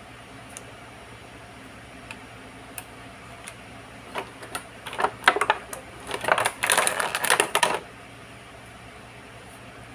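Small plastic toy pieces being handled: a few scattered clicks, then a dense run of clicking and clattering from about four seconds in that stops just before eight seconds.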